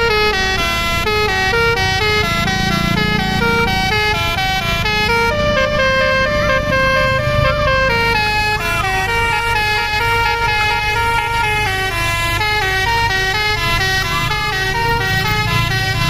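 Bus telolet horn, a multi-tone musical air horn, playing a continuous melody of quickly changing notes over the low rumble of the bus engine.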